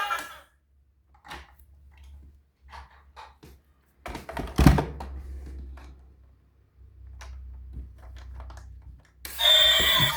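Scattered clicks and light knocks from plastic toys and packaging being handled, with one louder thunk about four and a half seconds in. Just before the end a toy vehicle's electronic siren-like tune starts up.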